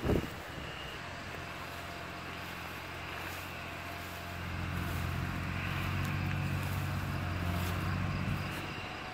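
Tractor diesel engine running steadily, growing louder from about four seconds in and fading again near the end, as a tractor passing close by. A brief gust of wind hits the microphone at the very start.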